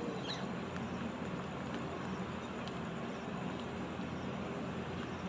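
Steady outdoor background noise with a low hum, and a brief bird chirp about a third of a second in.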